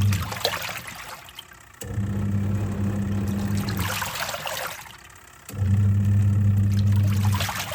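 Twin-tub washing machine in its wash cycle: the pulsator motor hums in spells of about two seconds, stopping and starting again twice, with water sloshing and splashing in the tub between spells as the wash reverses direction.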